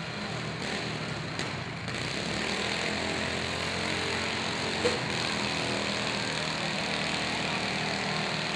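Several riding lawn mower engines running together steadily, with a single sharp knock about five seconds in.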